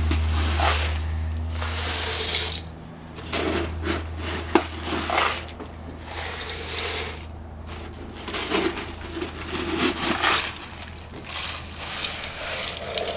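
Gravel scooped from a bag and poured into a terracotta flower pot around an inner clay pot, the pebbles rattling against each other and the clay in a series of short pours. The gravel packs the gap as a heat barrier for a flower-pot tandoor. A low steady hum drops away about two and a half seconds in.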